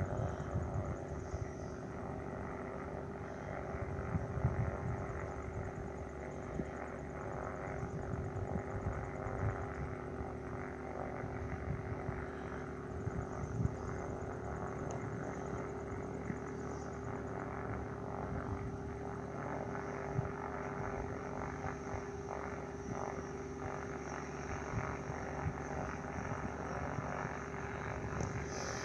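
Kitfox IV floatplane's propeller engine running with a steady drone as the plane taxis across the water.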